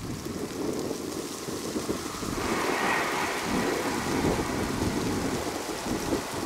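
RBDe 560 'Domino' electric multiple unit running along the line: a steady, noisy rumble of wheels on the rails that grows louder, with a higher hiss joining about two and a half seconds in.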